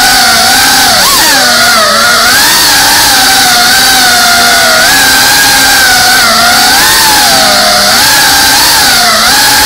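FPV drone's brushless motors and propellers whining loudly, heard from the drone's onboard camera. The pitch wavers up and down constantly as the throttle is worked through the flight.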